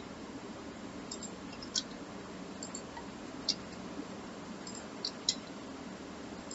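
Scattered short, sharp clicks of a computer mouse and keyboard, about seven of them, over a steady low background hum.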